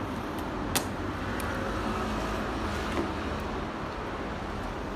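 Steady background room noise, with a sharp click a little under a second in and a few fainter clicks as plastic and cardboard packaging is handled and pulled open.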